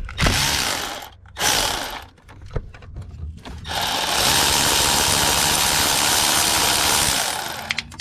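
Power tool on a long socket extension spinning off a 13 mm ground bolt at the back of an LS engine. It gives a few short bursts, then runs steadily for about three and a half seconds before winding down.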